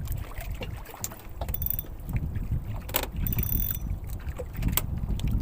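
Low, uneven wind rumble on the microphone, with a few sharp clicks or knocks, the clearest about three seconds in and near the end.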